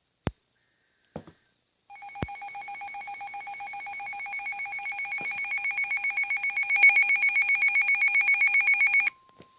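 Emergency-alert attention tone: a harsh electronic ringing with a rapid warble that starts about two seconds in, grows steadily louder for about seven seconds and cuts off sharply. It marks the start of a new warning. Before it come a couple of sharp clicks and a faint short data chirp.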